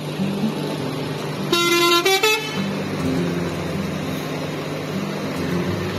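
A Scania coach's diesel engine running steadily as the bus pulls away, with two short, loud horn toots about a second and a half in.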